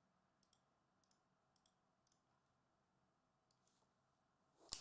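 Near silence, with a few faint scattered clicks and a sharper double click near the end.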